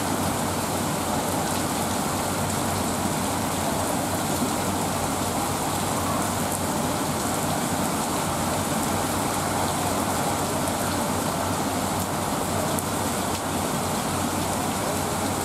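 Heavy monsoon rain falling steadily on pavement and roofs, an even, unbroken hiss, with a faint steady low hum underneath.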